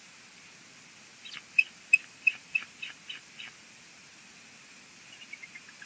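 Bald eagle calling close to the microphone: a quick series of about eight short, high, sharp notes, followed near the end by a fainter run of notes stepping down in pitch.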